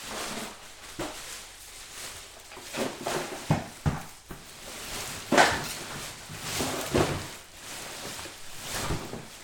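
A trash can being emptied: irregular rustling and handling noise with scattered knocks and thumps, the loudest about halfway through.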